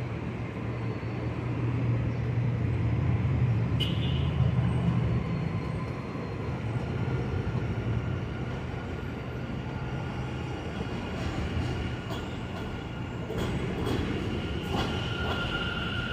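New York City subway train on the elevated BMT Jamaica Line: a low rumble that swells a couple of seconds in and then settles to a steady run, with a few clicks from the wheels over rail joints.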